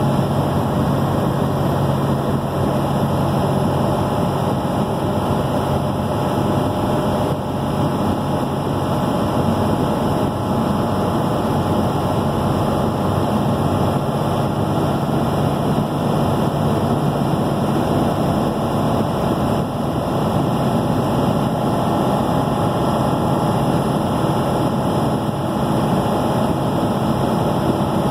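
Steady road and engine noise heard from inside a vehicle cruising at highway speed.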